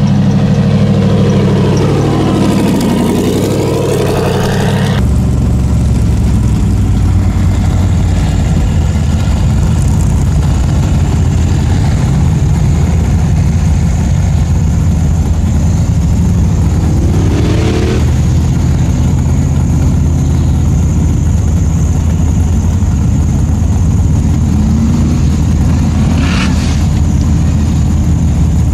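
Formula Offroad buggy's engine running hard and loud under full throttle, its pitch sweeping up and down in the first few seconds before the sound changes abruptly, then a steady heavy drone with a thin high whine over it.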